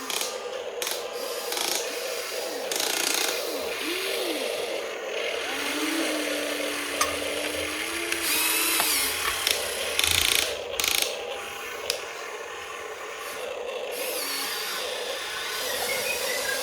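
Radio-controlled toy excavators' small electric motors and gears whirring, the whine rising and falling in pitch as the arms and tracks move, with clicks and short scraping bursts.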